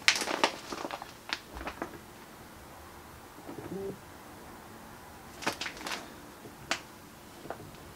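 Rustling and light tapping of a stack of folded cotton quilting fabric being handled and shuffled, in two clusters, one at the start and one a little past the middle. A short faint low pitched sound comes about halfway through.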